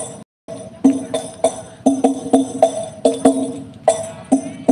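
Sholawat hadrah percussion played through a large PA sound system at a sound check: frame drums with jingles struck in a steady rhythm of about two strokes a second, each hit ringing. The sound cuts out completely for a moment just after the start.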